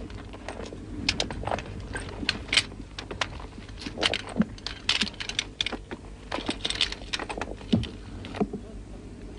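Irregular clatter of sharp clicks and knocks, a few a second and unevenly spaced, densest near the middle, over a steady low hum.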